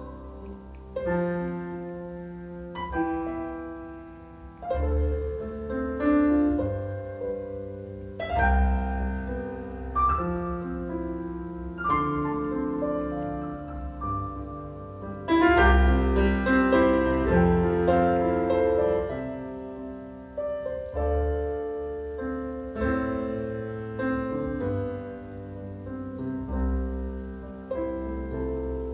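Instrumental interlude of a Mandarin pop ballad: a piano plays a melody over chords and low bass notes, with no singing. It is played back through M&G Audio V8F floor-standing hi-fi speakers.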